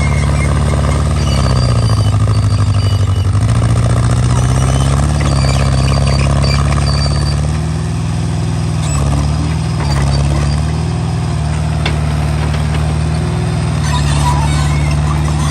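Small hydraulic excavator's diesel engine running steadily while it works; the engine note dips in pitch about two seconds in and again a few seconds later, then picks back up, as the digging loads it.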